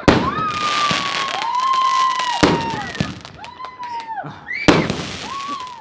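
SU-100 consumer firework cake firing: three sharp bangs, one at the start, one about halfway and one near the end, with crackling between shots. Over them runs a wailing tone that rises and falls in repeated sweeps.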